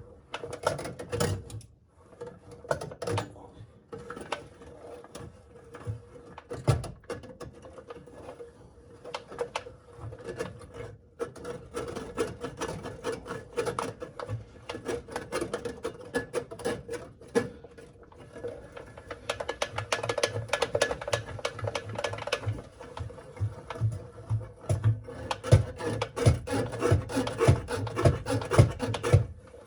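Drain snake being worked through a clogged drain: the steel cable scraping, rubbing and clicking against the pipe as it is twisted and pushed in. The scraping gets busier and louder about two-thirds of the way through.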